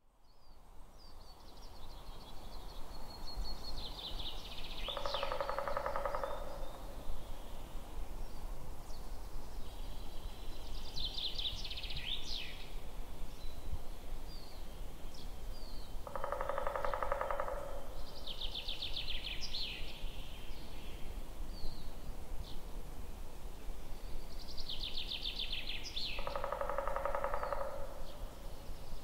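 Several songbirds singing in a forest. One song, a rapid trill that falls away at the end, repeats every several seconds, and a lower phrase of about a second and a half comes roughly every ten seconds, over a steady low background noise. The sound fades in at the start.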